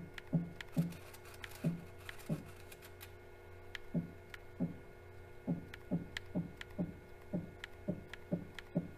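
A CNC milling machine's X axis being jogged in one-thou steps, about two short moves a second, each a brief low thunk with a click, as the end mill is brought up to the workpiece edge with a shim between them. Under them runs a steady hum from the mill's spindle, set turning slowly.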